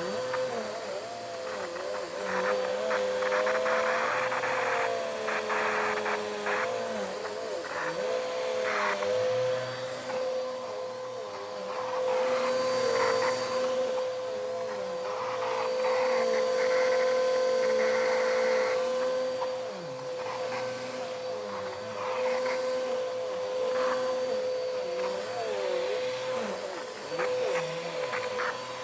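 Vacuum cleaner running with a steady motor whine, with wavering tones under it and scattered bursts of crackling.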